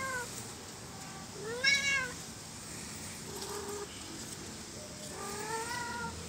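Kitten meowing four times in short, arching calls, the loudest about two seconds in and a fainter, lower one a little past the middle.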